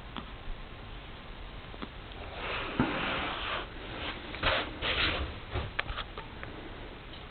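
A small child's breathy sniffling noises: a longer rush of breath a couple of seconds in, two short puffs around the middle, then a few faint clicks.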